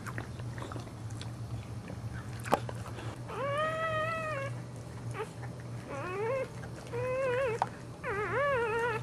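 Boxer dog whimpering: four high whining cries in the second half, the first long and steady, the later ones rising and wavering up and down. A sharp click comes a second or so before them, and a low steady hum sits underneath.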